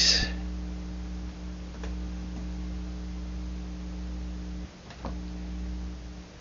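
Room tone: a steady low hum with a couple of faint clicks, the hum dropping out briefly near the end.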